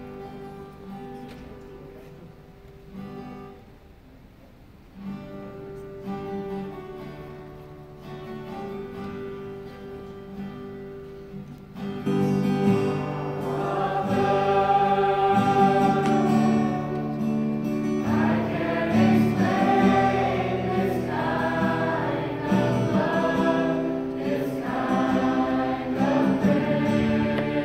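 Church choir singing a worship song with instrumental accompaniment. The first stretch is soft and mostly instrumental; about twelve seconds in, the full choir comes in much louder.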